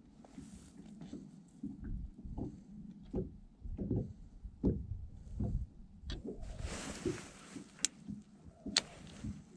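Small waves slapping against a boat's hull in a run of low knocks, with a brief rustling hiss about two-thirds of the way through and two sharp clicks near the end.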